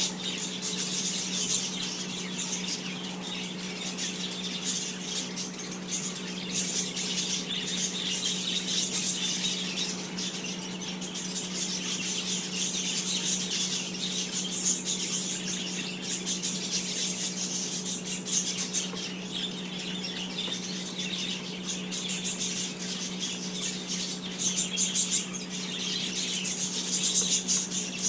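Dense, continuous chirping of small birds over a steady low hum.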